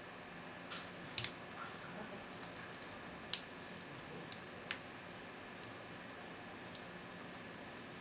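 Lock pick and tension tool working the five pin tumblers of a brass Master No. 160 padlock: scattered small metallic clicks, the sharpest about a second in and just past three seconds, dying away after about five seconds.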